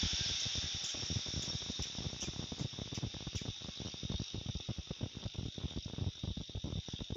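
Crickets chirping steadily at night, a high, even insect trill. Underneath runs a dense, irregular low fluttering of thumps and rustles.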